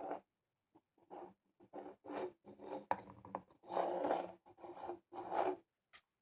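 Plastic LEGO pieces being handled: short, irregular scraping and rubbing sounds with a couple of sharp clicks near the middle.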